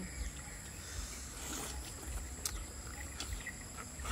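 Insects chirring in a steady high, even drone, with a few faint clicks scattered through it.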